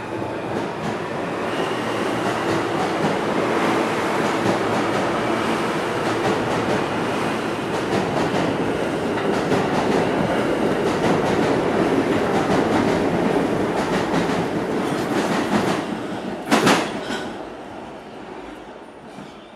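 An R160B subway train accelerates out of the station past the platform: a steady rolling rumble with rapid clickety-clack of its wheels over the rail joints, growing louder as the cars pass. Near the end there is one loud sharp clack, and then the sound fades as the train goes off into the tunnel.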